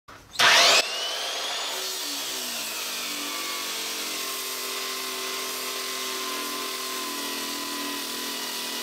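Sportsman 4000 portable generator running under a load of about 1.7 kW. A brief loud burst with rising pitch about half a second in, then a steady mechanical drone whose pitch sags slightly over the next few seconds and levels off.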